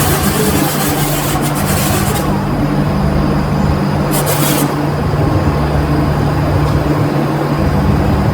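Steady low machine hum with a loud hiss of air over it; the hiss cuts off about two seconds in and comes back briefly around four seconds in.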